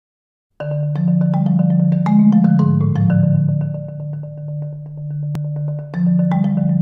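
Marimba played with four mallets: after a brief silence, fast repeated strokes on low and middle notes, with a single sharp click about five seconds in.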